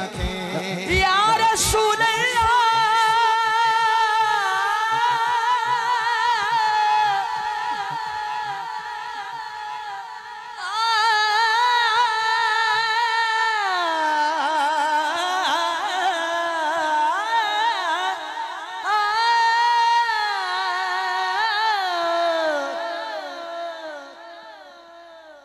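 An unaccompanied voice singing a naat in long, drawn-out, ornamented phrases with a wavering pitch, stepping down in pitch about halfway through and again near the end, then fading out. A few low thumps sound in the first two seconds.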